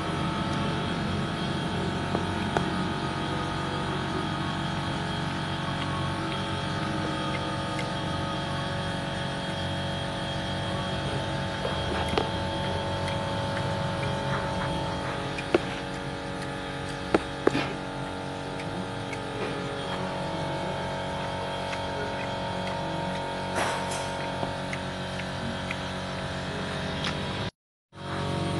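Steady mechanical hum holding several fixed tones, like a running engine or workshop machine, with a few sharp metallic clinks of tools, most of them around the middle. The sound cuts out for about half a second near the end.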